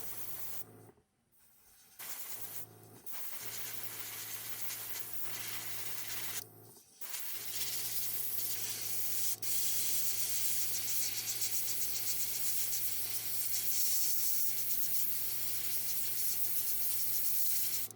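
Testors flat black paint sprayed in a steady hiss, stopping briefly twice early on and then running without a break. A low steady hum runs under it.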